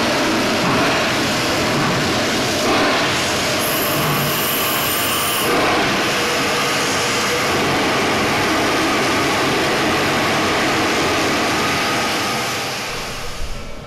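Reading T1 No. 2102, a 4-8-4 steam locomotive, moving slowly with its cylinder cocks open: a loud, steady hiss of steam blowing out at the cylinders. A sharper, higher hiss joins for about a second and a half around four seconds in, and the sound fades near the end.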